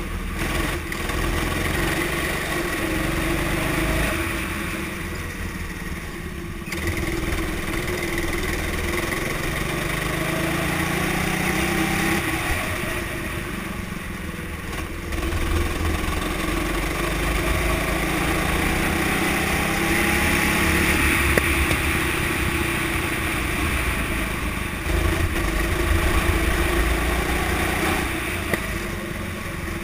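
Go-kart engine heard from on board the kart, its note climbing as it accelerates out of the corners and dropping away as the driver lifts off, about five and fourteen seconds in, before climbing again.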